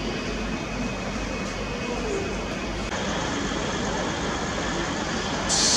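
PLK DP-560.00 rail diagnostic vehicle running slowly through the station: a steady rumble of engine and wheels on the track. Just before the end a loud hiss starts suddenly.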